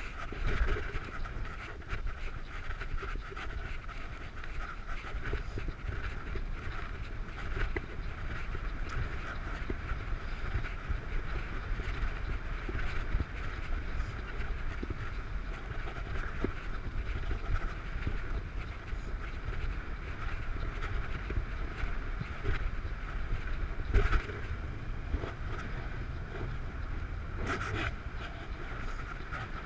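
Wind rushing over the microphone and tyre noise while riding a bicycle along a wet road, a steady low rumble with hiss, broken near the end by two sharp knocks.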